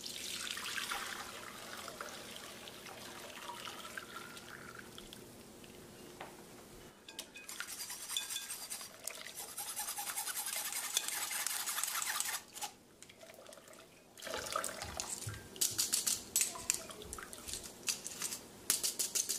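Meat stock poured from a pot through a wire-mesh sieve into a glass bowl, splashing. Later comes a run of sharp clicks and scrapes as a metal slotted spoon works against the sieve.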